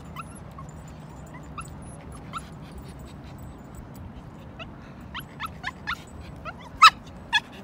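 Small dog whining and yipping in short high calls, scattered at first, then a quick run of them about five seconds in and two louder yelps near the end.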